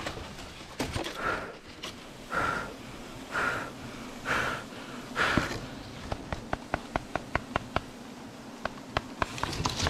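Five hard puffs of a person's breath, about a second apart. They are followed by a quick run of light clicks, roughly four a second.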